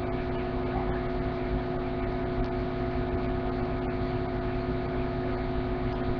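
Steady background hum and hiss, unchanging, with a few fixed low tones under the hiss.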